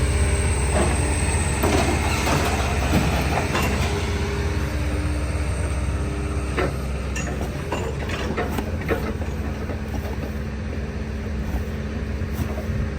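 Heavy machinery engine running steadily with a low rumble, with scattered metallic clanks and scraping of scrap metal.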